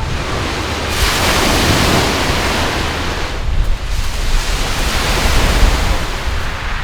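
Wind buffeting the microphone over the rush of waves on the lake shore: a loud rushing noise with a deep rumble that swells and eases.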